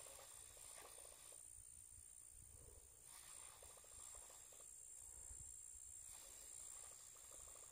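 Faint stop-and-go retrieve of a Whopper Plopper topwater lure: stretches of rapid fine ticking from the reel winding and the lure's spinning tail, broken twice by pauses of about a second and a half. A steady high thin whine runs underneath.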